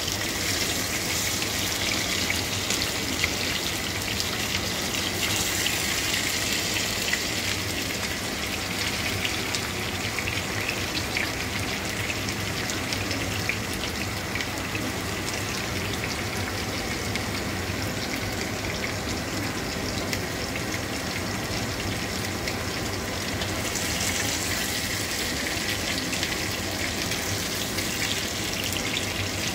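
Chunks of pork sizzling in hot oil in a frying pan: a steady hiss full of fine, constant crackling.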